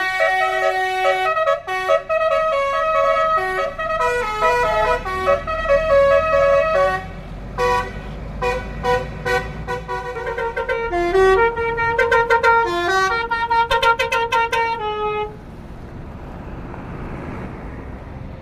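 Basuri musical horn on a tour bus playing a tune of stepped notes, some held and some short and quick, stopping about 15 seconds in. The bus's engine runs with a low rumble underneath and is left alone after the tune ends.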